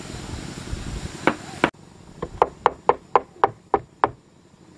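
Hand hammer knocking: two sharp blows, then after a short break a quick series of about nine sharp strikes, roughly four a second.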